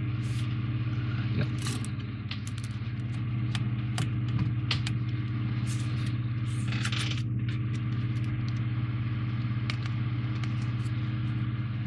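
Small clicks, ticks and scrapes of plastic model parts and a small screwdriver being handled, with a short scratchy rasp about seven seconds in. A steady low mechanical hum runs underneath.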